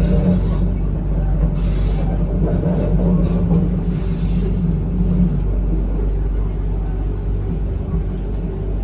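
Passenger train running along the rails: a steady low rumble of the moving carriage, with a steady hum that fades out about five seconds in.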